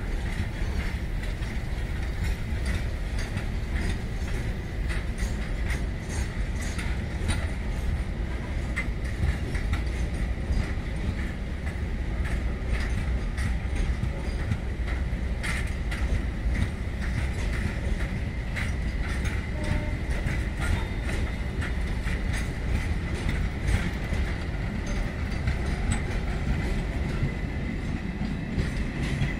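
Container wagons of a freight train rolling past: a steady low rumble of steel wheels on rail, with frequent sharp clicks over the rail joints and a steady high-pitched ring.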